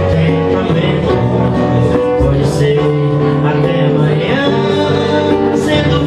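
Acoustic guitar played live, accompanying a man singing.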